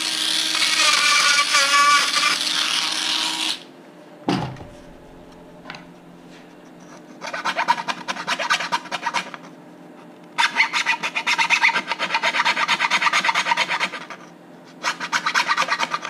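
A cordless Dremel rotary tool runs for about three and a half seconds, its whine wavering, then stops, followed by a single thump. A small file then rasps back and forth in a slot in thin plywood, in three bouts of quick strokes.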